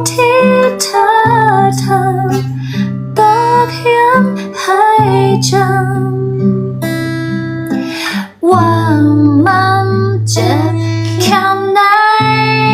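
A woman singing a Thai song over guitar accompaniment, in sung phrases over sustained chords, with a short break about eight seconds in.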